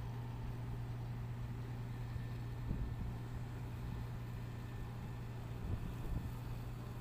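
Tugboat's diesel engine running steadily with a low drone as the tug pushes against a ship's bow, with a couple of brief low thumps, about three seconds in and again near six seconds.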